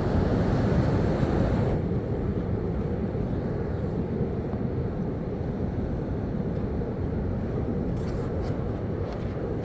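Steady low rumbling noise, a little louder for the first two seconds.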